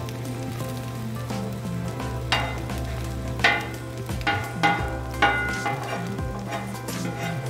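Eggs frying in ring molds on a hot flat-top griddle with a steady sizzle. Several sharp taps stand out between about two and five seconds in.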